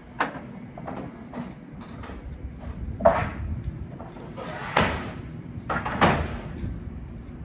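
Four knocks or bangs over a low, steady rumble.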